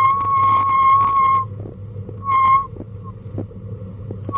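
Bicycle brakes squealing with one steady high pitch while the bike rolls over asphalt towing a pet trailer. The squeal stops about a second and a half in and comes back briefly at about two and a half seconds, over a low rolling rumble and small rattles from the trailer.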